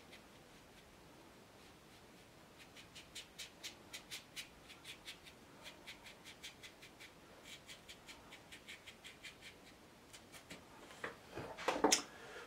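Watercolour brush dabbing on paper: a run of quick light ticks, about four a second, then a louder clatter near the end.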